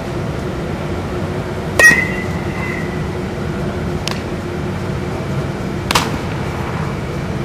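A metal bat hits a baseball with a sharp ringing ping about two seconds in. A lighter click follows near four seconds as the ball is fielded, and another sharp hit comes about six seconds in. A steady low rumble runs underneath.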